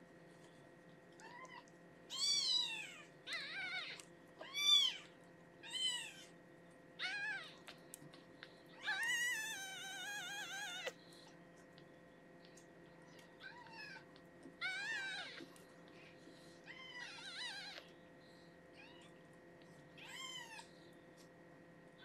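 A week-old newborn kitten crying in thin, high mews while being held and handled: about ten separate cries, with one long wavering wail about nine seconds in.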